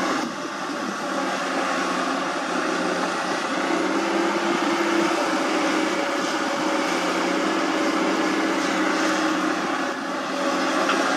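Komatsu hydraulic excavator's diesel engine running steadily under load as the machine swings and lifts its boom, its note rising a little about four seconds in.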